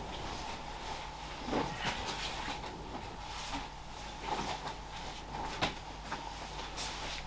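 Scattered small clicks and knocks of a thin plastic cup being handled as fingers pick fruit chunks out of it, over a steady low hum.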